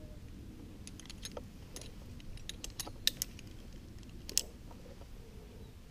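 Metal climbing hardware, carabiners and rappel gear, clinking and clicking while being handled: a run of irregular light clicks, the sharpest about three seconds in and again about four seconds in.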